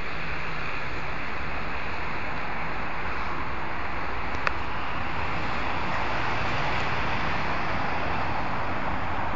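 Steady rush of city traffic and wind, with one sharp click about four and a half seconds in.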